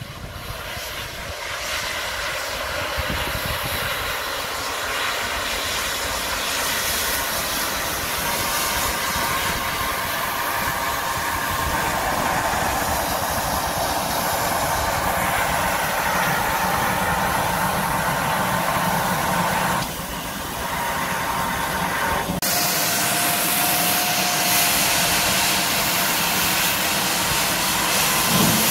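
GWR Castle Class four-cylinder 4-6-0 steam locomotive No. 5043 arriving at a station: steam hissing from around the cylinders over the rumble and clatter of the engine and coaches on the rails, growing louder over the first couple of seconds as it draws near.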